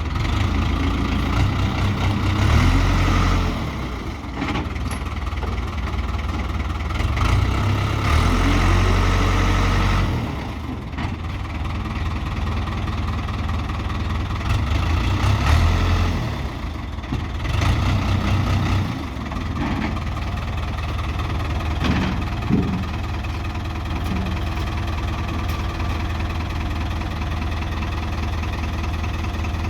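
Ford backhoe loader's diesel engine running, rising in load and settling back several times.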